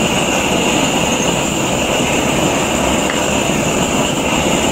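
Canister gas torch burning with a steady roar and hiss, its flame heating the small end of a connecting rod.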